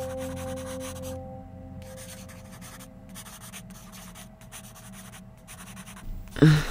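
Pen scratching on paper, with a held musical drone fading out over the first second or two. Near the end comes one short vocal sound.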